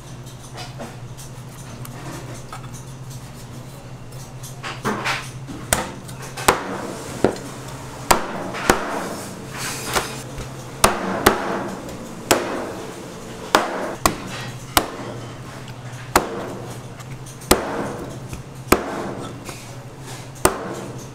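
Knife chopping on a cutting board: single hard strikes at an uneven pace of about one a second, starting about five seconds in, each with a short ring. A steady low hum runs underneath.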